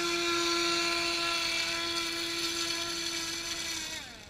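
Radio-controlled model boat's motor whining at high throttle, holding one steady high pitch, then dropping in pitch and fading as the throttle comes off about four seconds in.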